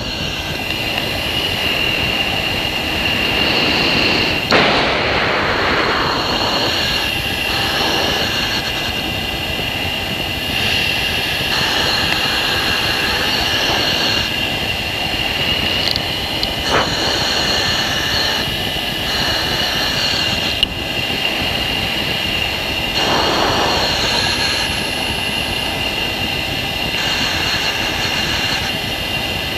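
Steady rushing cockpit noise of air and jet engine inside an F-16 in flight, with a constant high tone running through it. It swells briefly twice, about four seconds in and again about three-quarters of the way through, and there is one sharp click shortly before the second swell.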